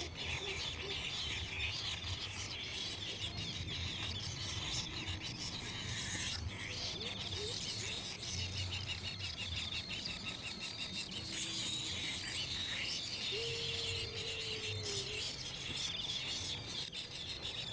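Baby birds chirping in rapid, high, continuous calls.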